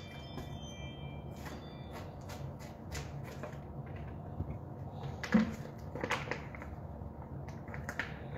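Kitchen prep handling sounds at a countertop: scattered clicks, taps and rustles, with one louder knock about five seconds in and a short clatter just after, over a steady low hum.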